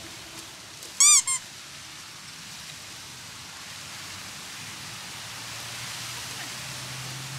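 A loud, short squeak with a rising-then-falling pitch, sounding twice in quick succession about a second in. Steady wind noise throughout.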